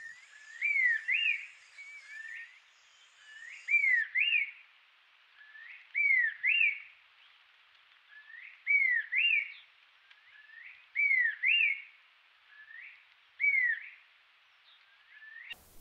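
Mount Victoria babax calling: a loud two-note whistled phrase, a swooping note then a higher one, repeated six times about every two to two and a half seconds.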